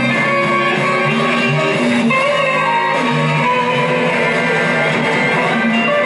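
Live band music, with electric guitar prominent over the rest of the band, including percussion.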